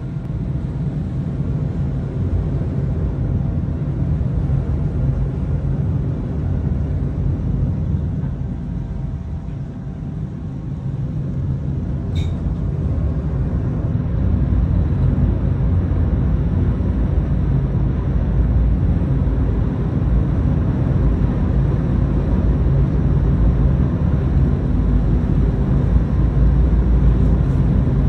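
Low, steady rumble on the deck of a moving cruise ship: engine and water noise mixed with wind on the microphone, growing louder about halfway through. A brief high chirp sounds about twelve seconds in.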